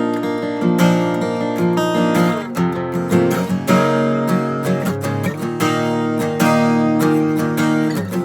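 A 2017 Martin D28 dreadnought acoustic guitar is strummed, with the chords ringing between frequent strokes. It is strung with D'Addario EXP 13-gauge strings tuned down to E flat.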